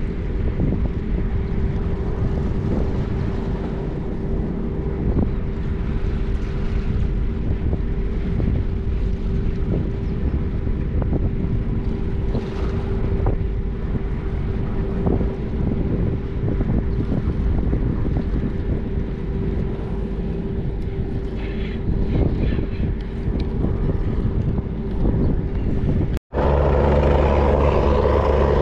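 Steady low engine drone with a constant hum, with wind on the microphone. After a sudden cut near the end, a much louder, deeper drone comes in as a large cargo ship passes close by.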